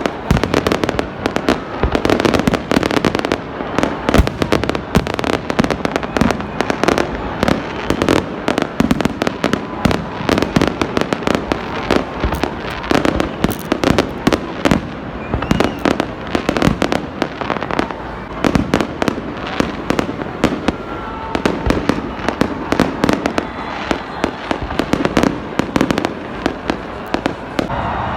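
Many fireworks going off at once across a city, dense overlapping bangs and cracks that never let up.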